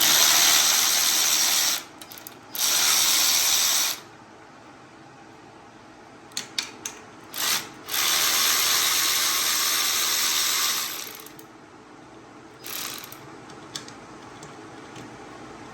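Power tool spinning out the 8 mm bolts that hold the recoil starter cover on, in several runs of a second or two each, the longest about three seconds, with a few light clicks between them.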